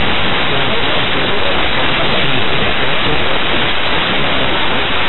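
Steady radio static: the open-frequency hiss of an air traffic control radio receiver between transmissions, with no clear voice.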